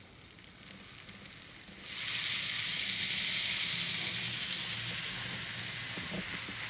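American Z Line Z scale GP30 locomotive and its cars running around a small loop of Rokuhan track. About two seconds in, the running sound jumps to a steady high hiss with a low hum as the throttle is turned up to maximum speed.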